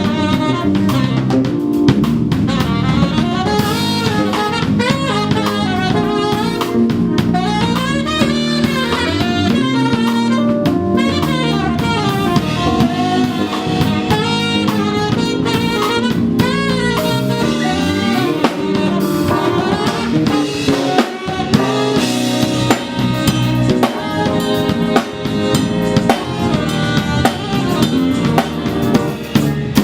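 A jazz band playing an instrumental passage: a drum kit with snare, rimshots and bass drum under a walking bass line and a saxophone melody. It starts right away after a brief quiet.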